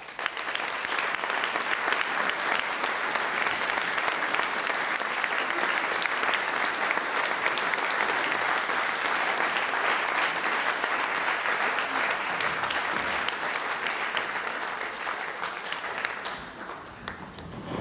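Audience applauding in a concert hall: dense, steady clapping that starts suddenly and thins out near the end.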